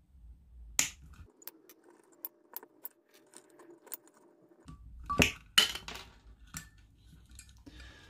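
Pliers and side cutters clipping wires in a touch lamp's base: a sharp snip about a second in, a run of small clicks and clinks, then two louder snips a little past halfway.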